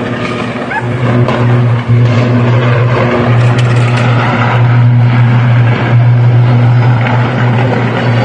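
Substation transformer failing and burning: a loud steady low hum over a rushing noise, which strengthens about a second in.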